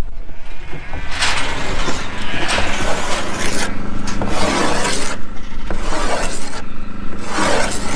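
Plywood shearing board being scored by hand, about five rasping scrapes with short gaps, roughening the board so the shearer's feet grip it better.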